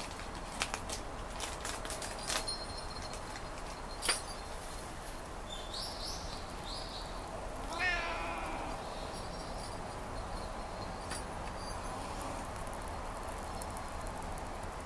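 Ginger tabby cat giving one short meow about eight seconds in, falling in pitch. A few sharp clicks come in the first four seconds.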